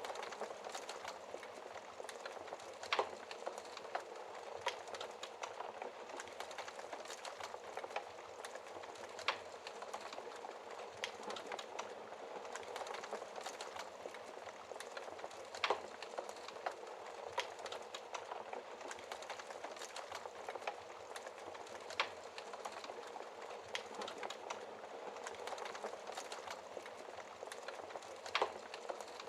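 Fire in a fireplace crackling: a steady hiss with many small snaps and a louder pop about every six seconds.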